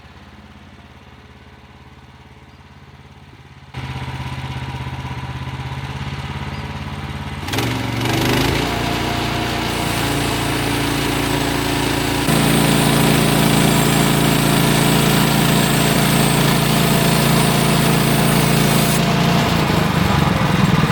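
Gas engine of a portable bandsaw sawmill: about four seconds in it comes up to a steady run, rises in pitch near eight seconds as the blade is brought up to speed, and from about twelve seconds the band blade is cutting through a pine log, adding a loud hiss over the engine.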